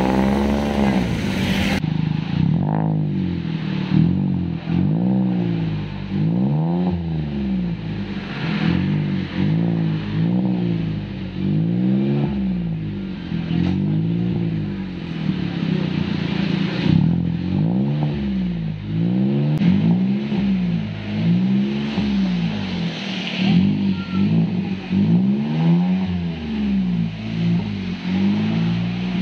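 Toyota Wigo's engine heard through an aftermarket freeflow muffler, revved over and over in short blips, its pitch rising and falling about every one to two seconds.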